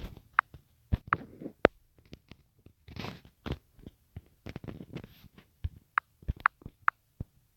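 Irregular sharp clicks and knocks, a few of them with a brief ringing ping.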